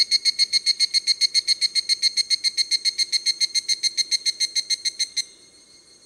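Higurashi, the evening cicada (Tanna japonensis), calling: a fast, even series of clear ringing pulses, about eight a second, that stops abruptly about five seconds in, leaving only a faint steady ringing.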